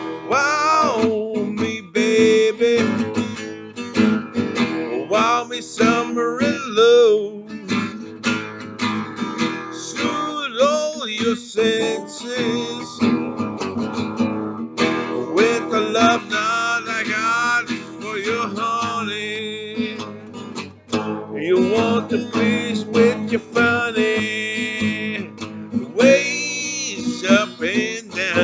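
Acoustic guitar playing a blues, picked and strummed, with a man's voice singing along at times.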